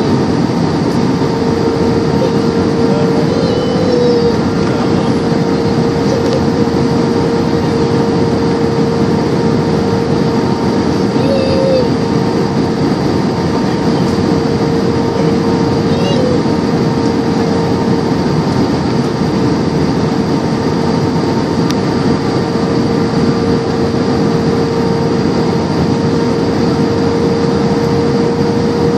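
Steady cabin noise of a jet airliner on approach: the engines and the rush of air past the fuselage, with a constant hum.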